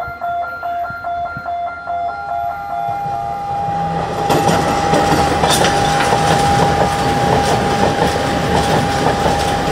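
Diesel passenger train passing at speed, its rumble building to a loud rush and clatter of wheels over the rail joints from about four seconds in. A steady high tone sounds over it.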